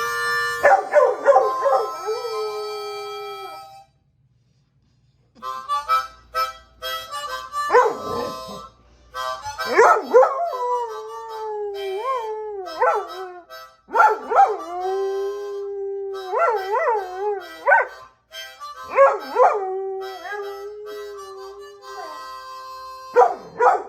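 A harmonica plays in short phrases while a Catahoula leopard dog howls along, her long howls sliding up and down in pitch. There is a short pause about four seconds in.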